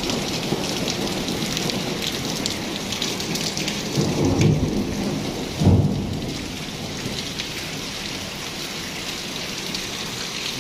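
Heavy rain falling steadily, with thunder rumbling about four seconds in and a louder peal near six seconds, after which the rain goes on slightly quieter.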